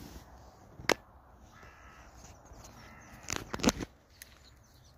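A crow cawing, with a sharp knock about a second in and a cluster of louder knocks around three and a half seconds.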